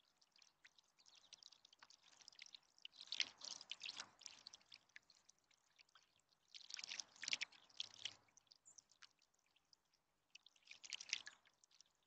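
Juvenile bluebird bathing in a shallow bird bath: three bouts of faint splashing as it dips and flutters its wings in the water, with light drips and trickling from a small solar fountain between them.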